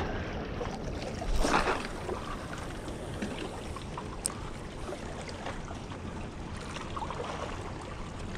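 Small waves washing against the shoreline rocks, a steady wash of water, with a brief louder rush about a second and a half in.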